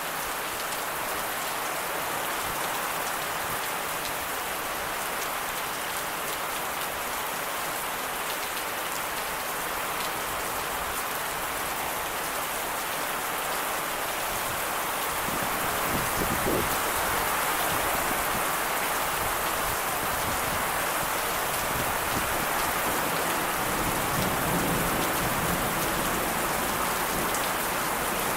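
Thunderstorm rain falling steadily, a dense hiss of drops that grows louder and fuller about sixteen seconds in.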